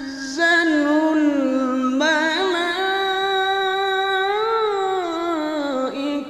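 A single voice reciting the Quran in the melodic tilawah style, drawing out long held notes that rise and fall slowly, with a fresh phrase starting about two seconds in.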